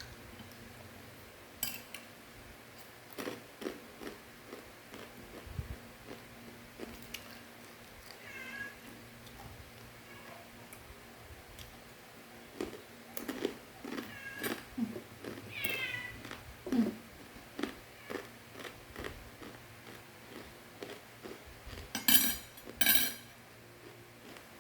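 Domestic cat meowing a few short times, among scattered sharp clicks and crackles. The loudest sounds are two crackles close together near the end.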